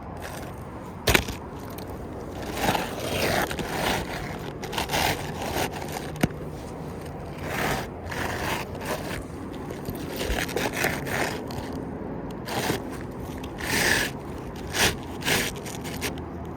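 Irregular scraping and rustling of gritty asphalt shingles being handled and scuffed on the roof, with a sharp click about a second in and another around six seconds.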